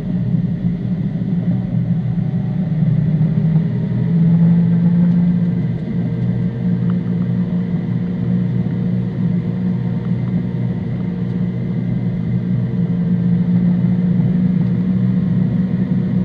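Datsun 240Z race car's engine heard from inside the cabin, cruising steadily at low revs of about 2,400–2,800 rpm, a deep steady drone that swells slightly twice as the car picks up a little speed.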